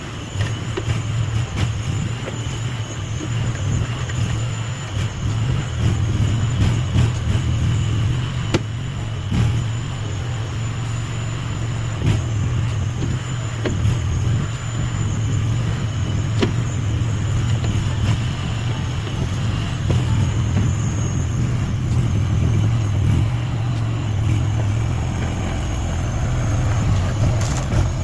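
Mini skid steer's small engine running steadily, with a faint high whine and scattered light clicks over it.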